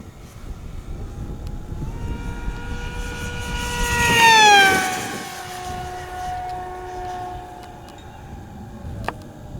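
Durafly EFX Racer RC plane's electric brushless motor and propeller whining as it makes a high-speed pass on a 5S battery. The whine grows louder, peaks about four seconds in with a sharp drop in pitch as the plane goes by, then fades at the lower pitch.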